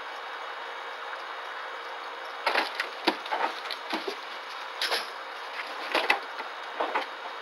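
A small monkey climbing and moving about inside a wire-mesh cage, making a run of light, irregular clicks, knocks and rattles from about two and a half seconds in until near the end, over a steady hiss.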